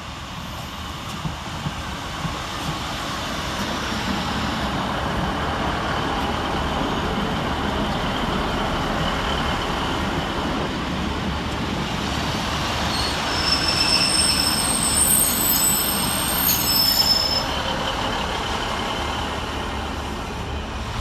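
A train running through the station without stopping. Its rumble builds over the first few seconds and stays loud, and high-pitched wheel squeal comes in for a few seconds just past the middle.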